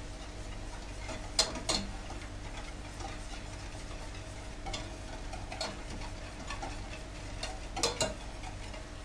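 A whisk clinking against the side of a steel saucepan as the butter, sugar and cream mixture for toffee is stirred. There are a few scattered clinks over a faint steady hum.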